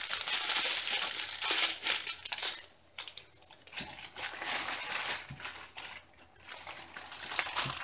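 Thin plastic packaging crinkling as a strip of small plastic bags of diamond painting drills and a clear plastic bag are handled and packed away, in irregular rustles with two short pauses.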